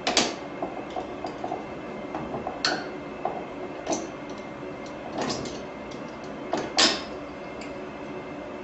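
Sharp metal clicks and scrapes, about five louder ones a second or so apart with small ticks between, as the old lock ring is worked off an office chair's gas cylinder sleeve.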